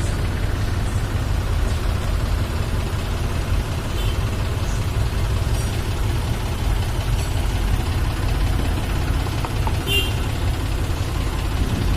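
A car engine idling steadily, with a few light clicks over it.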